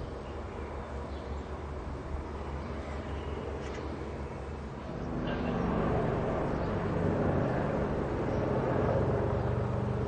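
Zeppelin NT airship's propeller engines droning overhead, a steady hum that grows louder about halfway through as the airship comes closer.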